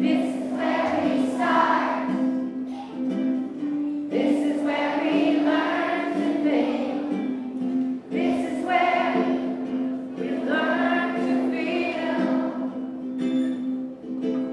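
A song sung with ukulele accompaniment.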